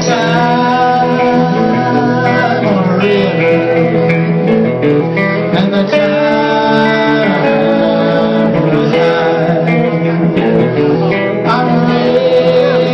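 A rock band playing live, led by guitars, with held notes and chord changes.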